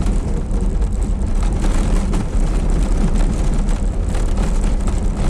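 IZh-2717 van heard from inside the cab while driving: steady engine and road noise with rattling and creaking from the body. The driver cannot place the sound and suspects the van's box body or a brake pad.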